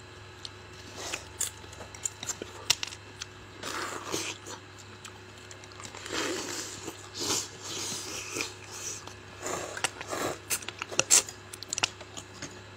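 Close-up mouth sounds of eating fish head: irregular biting and chewing with wet smacks and clicks.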